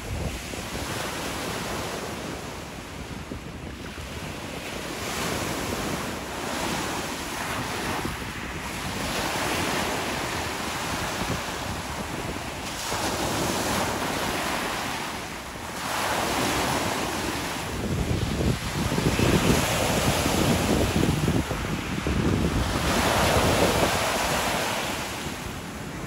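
Small Lake Michigan waves breaking and washing up a pebble beach, swelling and fading every few seconds, louder in the second half.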